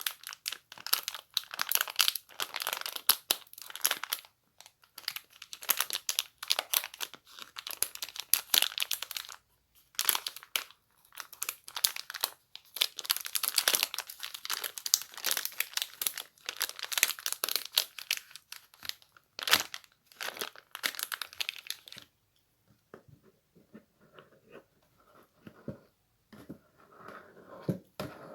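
Crinkly material being rustled and crumpled in dense crackling bursts, with a short pause near the middle. About 22 seconds in it gives way to softer, duller handling sounds.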